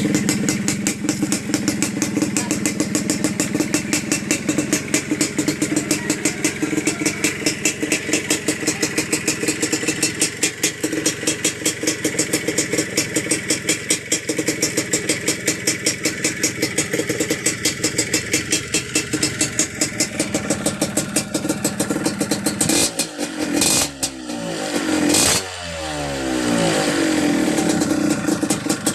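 Yamaha DT125 two-stroke single-cylinder engine idling with an even, fast pulse. It is revved twice in quick succession about three-quarters of the way through, the pitch rising and falling, then settles back to idle.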